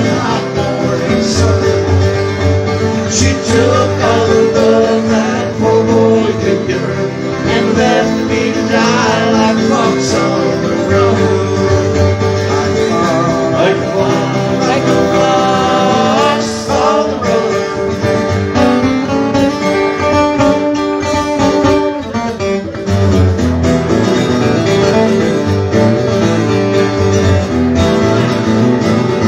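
Live country-style song: acoustic guitars strummed with men singing into microphones through a PA.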